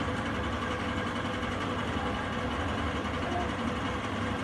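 Steady low background rumble and hiss with no distinct events.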